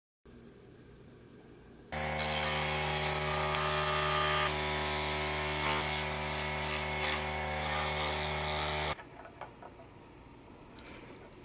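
Small electric motor of a restored mini lathe switched on and running at a steady speed for about seven seconds, then switched off abruptly; a steady hum and whine with no change in pitch.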